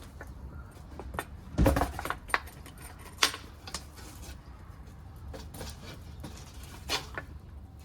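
Wood burning in a secondary-combustion wood stove, crackling with irregular sharp pops, the loudest cluster about one and a half seconds in, over a steady low rumble. The fuel is old broken-up wooden furniture.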